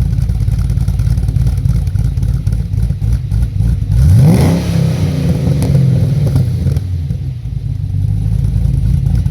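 6.2-litre L99 V8 of a 2013 Camaro, fitted with a rough-idle blower cam and a freer exhaust, idling with a loping, choppy beat. About four seconds in the throttle is blipped once: the revs jump sharply, then fall back over a few seconds with a burble on the overrun before settling into the lumpy idle again.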